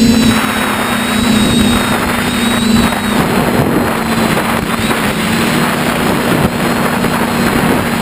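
Motor and propeller of a radio-controlled model aircraft running with a steady hum, heard from a camera on board, under heavy wind rushing over the microphone. The motor's pitch dips slightly about three seconds in.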